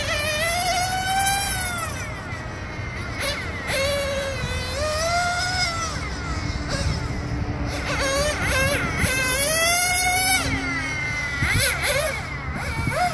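Xray NT1 1/10 nitro touring car's small two-stroke glow engine, heard as a high whine that rises in pitch as it accelerates and drops away as it slows for the corners, several times over.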